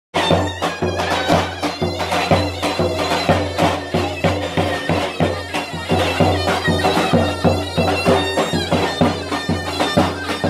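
Turkish folk dance music played live on a davul bass drum and a shrill reed instrument. The drum beats about twice a second under a continuous, droning reed melody.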